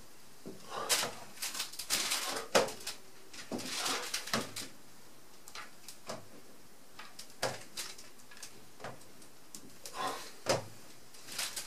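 Plastic installation squeegee dragged in short strokes over wet window film on glass, a series of irregular swishing scrapes with pauses between, pushing the soapy water out from under the film.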